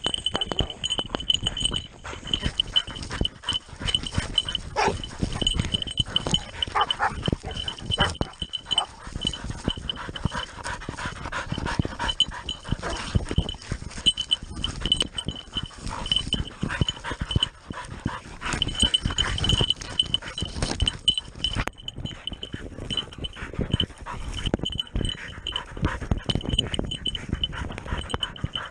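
Hunting hound panting and scuffling through undergrowth as it bites and holds a wild boar, with a steady bell-like high ringing pulsing over the commotion.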